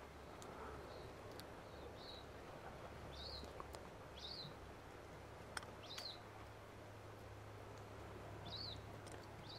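A small bird calling in short, high chirps, about seven of them at irregular intervals a second or more apart, over faint outdoor background noise with a couple of light clicks.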